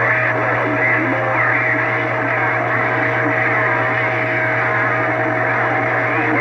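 CB radio receiver giving out a steady hum, static and two steady heterodyne whistles, with faint, garbled voices of distant stations keyed up over one another on the channel.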